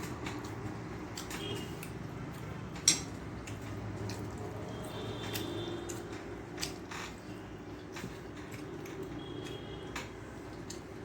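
Eating sounds: chewing and light clicks of hand and food against a plate, with one sharper click about three seconds in, over a steady low background hum. Faint short high tones sound a few times in the background.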